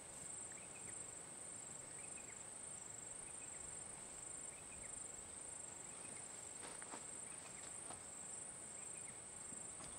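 Faint, steady, high-pitched insect chorus, with a few faint clicks about seven seconds in.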